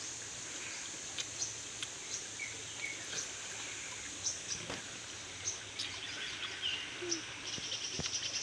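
Outdoor ambience of birds chirping briefly over a steady high hiss, with scattered short clicks and a quick run of rapid ticks near the end.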